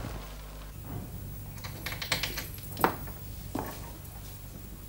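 A few faint, irregular light clicks and taps over a low steady hum.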